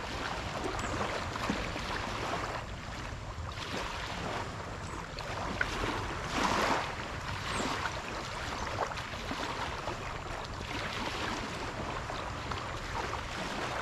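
Wind and small waves lapping at a riverbank: a steady rushing noise that swells and fades, with a few faint clicks.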